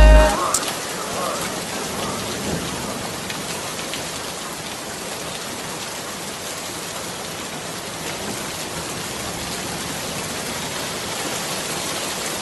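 Steady rain falling, an even hiss that carries on unchanged. The song's beat cuts off just as it begins.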